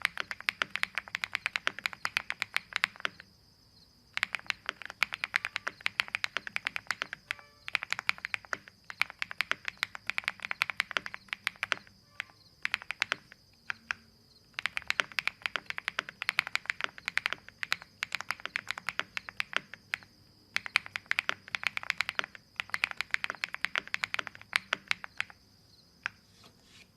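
Typing on a Jelly evolv75 mechanical keyboard: fast runs of key clicks in bursts of a few seconds, broken by short pauses.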